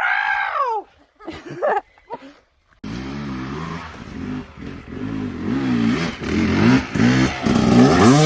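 An off-road vehicle's engine starts up abruptly about three seconds in and revs unevenly, its pitch rising and falling and growing louder toward the end. Before it come a loud arching cry and shorter pitched calls.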